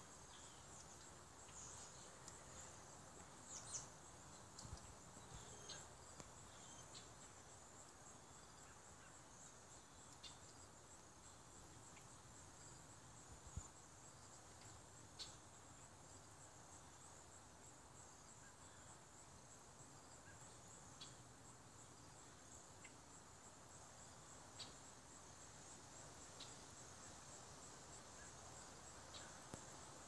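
Faint, steady high-pitched trilling of insects, with scattered short bird chirps and a couple of soft thumps.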